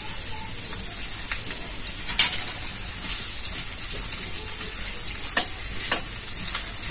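Sliced onions sizzling steadily in hot oil in a metal pan as they fry toward beresta, with a metal spatula stirring them and knocking sharply against the pan a few times.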